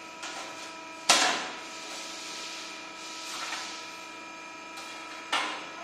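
A 125-ton CNC hydraulic press brake running with a steady machine hum. There are two sharp clanks, the louder about a second in and the other near the end, with fainter knocks in between as the sheet steel is handled and bent.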